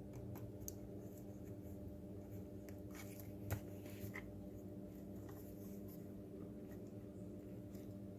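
Small clicks and handling noises of plastic robot-kit parts and cables being fitted by hand, with one sharper click about three and a half seconds in, over a steady low hum.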